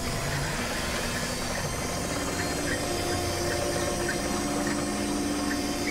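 Boat engine running steadily, with a constant hum and the wash of water alongside the hull.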